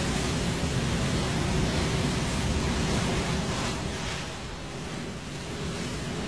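Ocean surf breaking on a beach: a steady rushing hiss of waves that eases a little about four seconds in.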